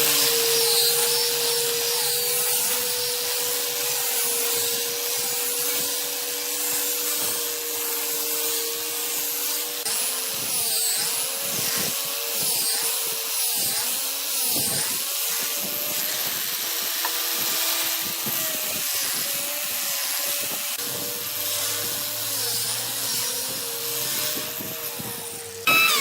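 An electric power tool's motor running steadily with a high, hissy whine, its pitch dipping and wavering for a few seconds midway as it works the wood, then switching off near the end.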